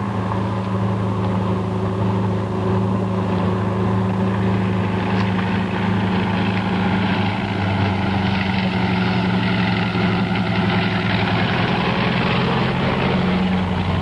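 An engine running steadily with a constant low hum.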